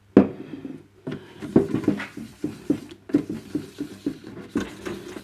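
Abrasive pad from a headlight lens restoration kit rubbed back and forth over a plastic radio dial lens, about two scrubbing strokes a second, after a sharp tap as the pad goes on; the lens scratches are being sanded out with the third, finer grade of pad.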